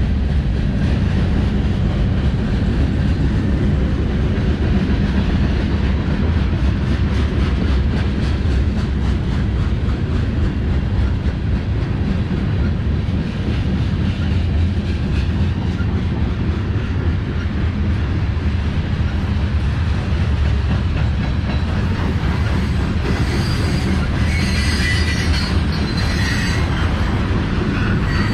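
Freight cars of a passing manifest train rolling by: a steady low rumble of steel wheels on rail with rapid clicking. High wheel squeal rises over the last several seconds.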